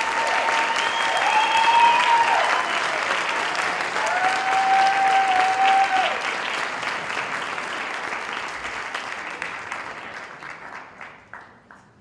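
A large audience applauding, with a few long held cheers over the clapping in the first half. The applause then gradually dies away to a few last scattered claps near the end.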